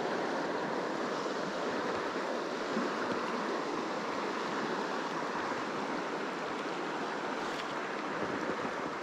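Steady rush of a shallow creek's water running over cobbles in a riffle.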